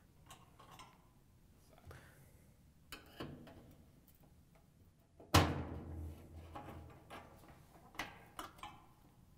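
Flathead screwdriver prying the metal spring clips that hold a top-load washer's cabinet to its back panel: light clicks and scrapes, and about five seconds in one sharp snap that rings briefly as a clip springs off, followed by a few more small clicks.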